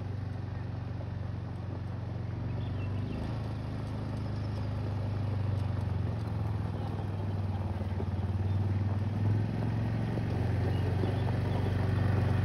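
ATV engine running at a steady low speed, a low drone that grows gradually louder as the quad approaches.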